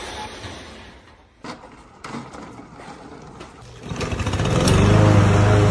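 Gas push lawn mower pull-started about four seconds in, its engine catching quickly and then running loudly and steadily. Before that there are only a few faint knocks.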